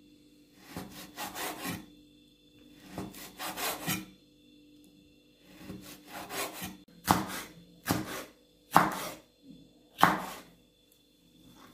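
Kitchen knife slicing food on a cutting board. It saws back and forth in three short runs of strokes, then makes four separate, louder cuts that strike the board in the second half.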